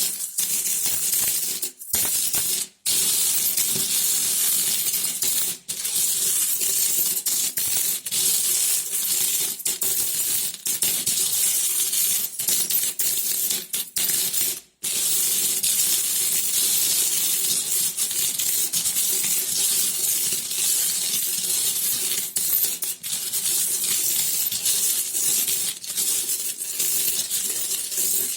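Coins clinking against each other in a dense, continuous jingle, broken by short silent gaps about two, three, six and fifteen seconds in.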